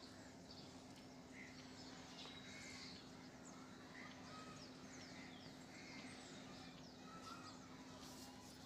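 Near silence: a faint steady hum and background hiss, with scattered faint high chirps of distant birds.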